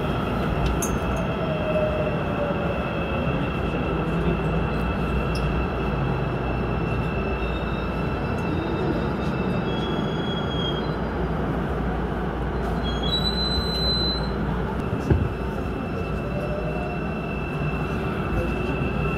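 Airport Railroad commuter train running through a tunnel, heard from inside the car: a steady rumble of wheels and traction motors with a high steady tone. A motor whine falls in pitch in the first few seconds and rises again near the end, with brief high wheel squeals about 13 seconds in and a single knock about 15 seconds in.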